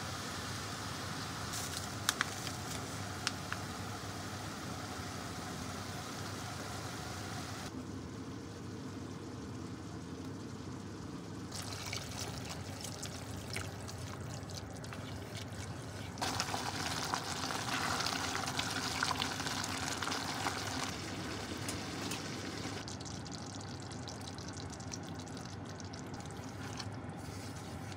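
Liquid poured into a pot of cooking pork slices, with steady cooking noise from the pot and a few sharp knocks of wooden chopsticks stirring the meat.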